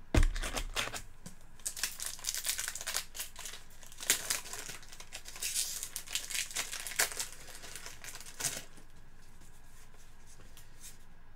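Trading card pack wrapper crinkling and being torn open by hand, with a dull thump at the start; the crinkling stops about eight and a half seconds in.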